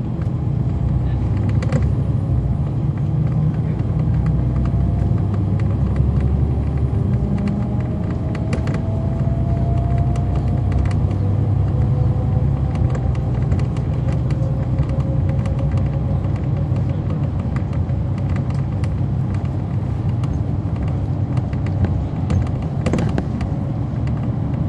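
A 2011 NABI 416.15 (40-SFW) transit bus, with a Cummins ISL9 diesel engine and a ZF Ecolife 6-speed automatic transmission, heard from inside while driving. A steady low engine rumble runs under a faint whine that rises slowly in pitch over about fifteen seconds, with scattered light rattles and clicks.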